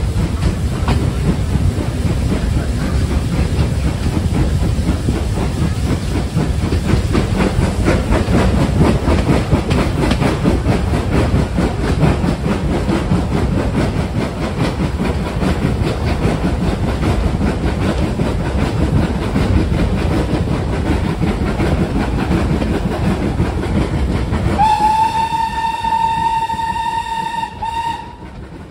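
Steam-hauled train running, heard from a carriage window: a steady loud rumble of the carriage on the rails. Near the end the steam locomotive's whistle sounds one long note of about three seconds, sliding up slightly as it opens.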